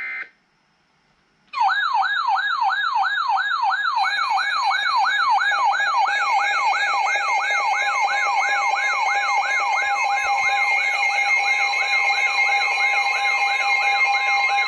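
Emergency alert siren tone: a loud, fast wailing sweep rising and falling about three times a second starts about a second and a half in, with steady alarm tones layered on from about four seconds in.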